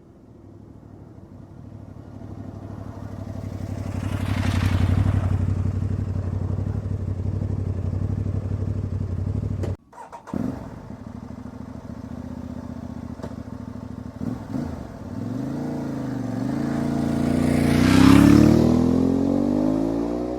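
Aprilia Tuareg 660 parallel-twin motorcycle riding past, its engine note swelling as it approaches and then cutting off abruptly about halfway through. A second pass follows, the engine pitch rising and falling as it revs, loudest near the end.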